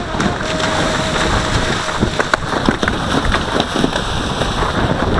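Horses going through a water jump: water splashing and spraying, with short thuds of hooves, and wind buffeting the microphone.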